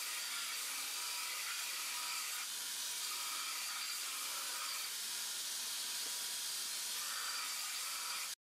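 Belt grinder grinding a mosaic damascus steel knife blade held against the abrasive belt: a steady, even grinding hiss.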